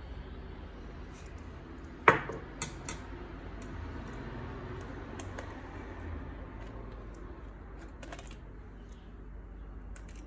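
Small clicks, taps and light clatter of hands and a screwdriver working on an open laptop's plastic and metal parts. There is one sharp knock about two seconds in, followed by a couple of lighter clicks.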